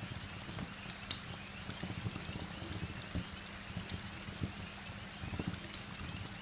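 Steady rain with a wood fire crackling, its sharp pops scattered through. The loudest pop comes about a second in, and others come near four and six seconds.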